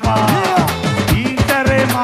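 Band music with a steady beat of about four strikes a second, a moving bass line and a melody that slides up and down in pitch.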